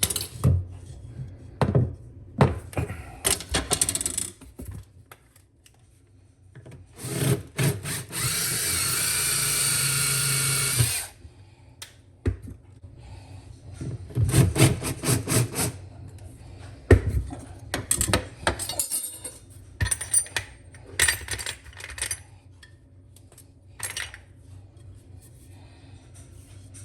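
Power drill running steadily for about three seconds near the middle, among scattered clicks and knocks of tools and parts being handled.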